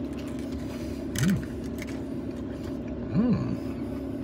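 Two short rising-and-falling "mm" hums from a man chewing a chicken nugget, about a second in and near the end, over a steady low hum inside a parked car's cabin.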